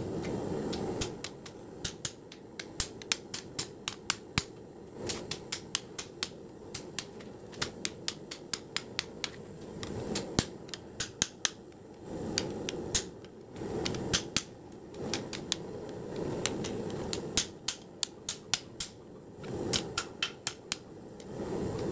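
Hand hammer forging hot leaf-spring steel on a cylindrical post anvil: runs of sharp metallic blows, about three a second, broken by short pauses.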